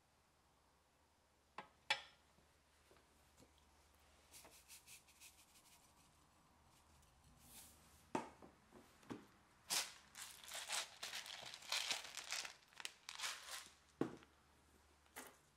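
Faint kitchen handling noises: a sharp click about two seconds in, then a run of short crinkling, rustling bursts that grows busier in the second half, with a dull knock near the end.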